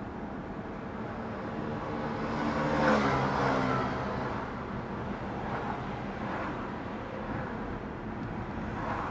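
Steady road and tyre noise of a car driving slowly through town. About three seconds in, another vehicle passes close by: its engine note swells to a peak and drops in pitch as it goes.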